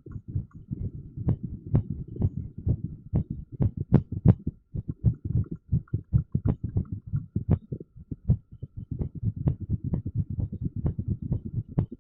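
Amplified human heartbeat in an irregular rhythm, with a TENS unit in use. It is heard as a dense run of low thuds at uneven spacing, with sharper clicks about twice a second.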